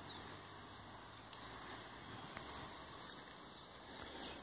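Faint outdoor ambience: a low steady hiss with a few faint, short bird chirps, mostly near the start.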